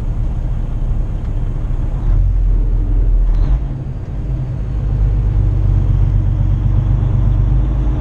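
Semi-truck engine and road rumble heard from inside the cab while driving, a steady low drone. The engine note strengthens about two seconds in, dips briefly near the middle, then runs steadily again.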